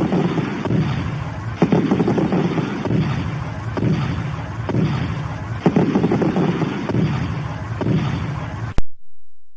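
Electronic noise sound effect from a Franklin Digital Book System DBS-2 demo cartridge, heard straight from the unit's audio output: a low, crackling, explosion-like rumble that swells in bursts about every two seconds, then cuts off abruptly with a click near the end.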